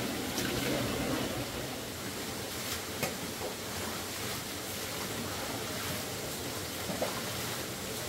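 Steady rush of a waterfall's falling water, with a few faint knocks about half a second, three and seven seconds in.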